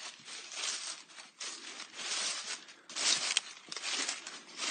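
Rustling, scraping and crunching of someone pushing through dry debris and brush, a run of irregular scratchy noises with a sharp click a little over three seconds in.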